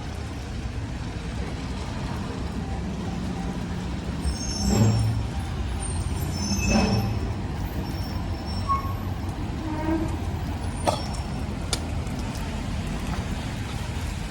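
Street traffic on a wet town street: a steady low engine rumble, with two louder vehicle passes about five and seven seconds in, carrying a high squeal or hiss. A couple of sharp clicks follow near the end.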